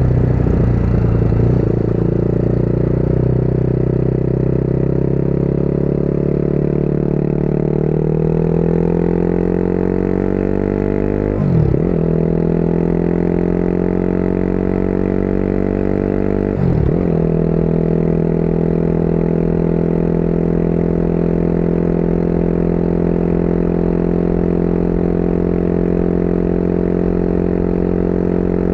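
Motorcycle engine pulling up through the revs, shifting up a gear about eleven seconds in and again about five seconds later. Each shift is a brief dip before the pitch picks up lower. After that the engine runs steadily at cruising speed.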